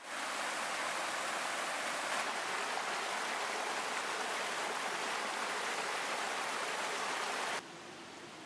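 Mountain stream rushing and splashing over rocks, a steady full rush that drops sharply to a much fainter hiss near the end.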